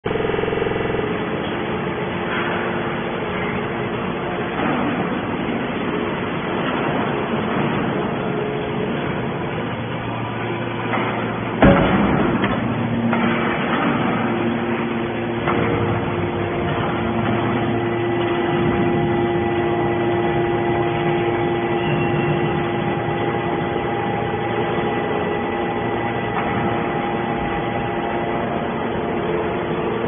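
Hydraulic scrap metal baler running, a steady machine hum from its hydraulic drive as the lid cylinders press down on metal scrap. One loud metallic bang comes about twelve seconds in.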